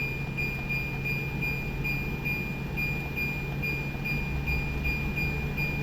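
LG 12,000 BTU window air conditioner running in cool mode: a steady low hum and rushing air, with a high whine that pulses evenly about two to three times a second, as the fan is still speeding up.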